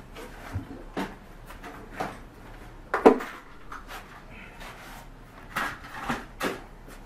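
Scattered knocks and clunks of objects being picked up and set down in a workshop, about six in all, the loudest about three seconds in.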